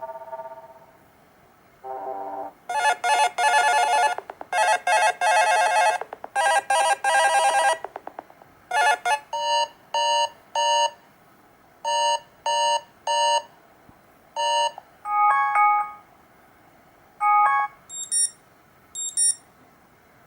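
Black Fox B5 smartphone's built-in ringtones and alert tones playing one after another through its speaker. A short tone is followed by several seconds of buzzy warbling trills, then sets of three quick beeps, a few short chimes, and high-pitched beeps near the end.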